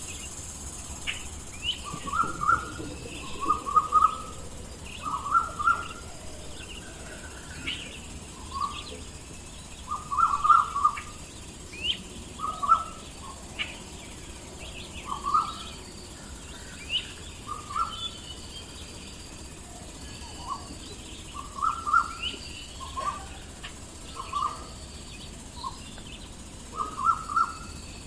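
Birds calling: short calls repeated every second or two, often in quick clusters of two or three, mixed with brief sharp chirps, over a steady background hiss.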